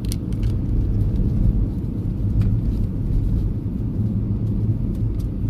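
Steady low rumble of car road noise, with a few faint clicks.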